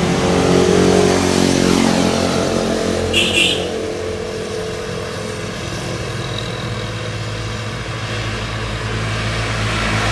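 Motorcycle engine running close by, revving up and down briefly at first, then settling to a steady idle. A short high-pitched sound cuts in about three seconds in.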